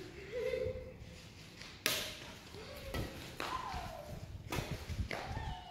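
Badminton rackets hitting a shuttlecock in a short rally: a few sharp hits about a second apart, the first about two seconds in, with faint voices in the background.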